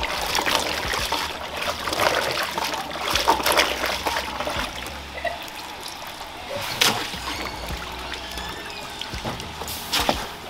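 Peeled cassava being washed by hand in a plastic basin of water: splashing and sloshing, with water trickling back into the basin as pieces are lifted out, and a few sharper knocks, the loudest about seven seconds in.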